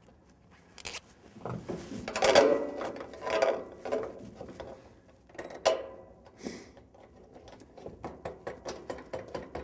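Metal mounting hardware being handled and worked on a truck toolbox: scrapes and knocks, a sharp click about halfway through, then a fast run of small clicks near the end.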